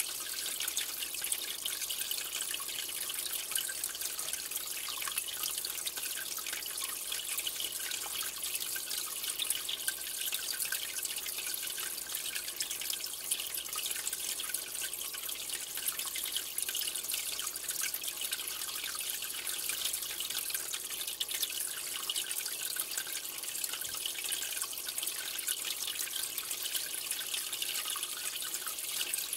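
Aquarium water trickling and bubbling steadily, a dense high patter of small splashes with no breaks.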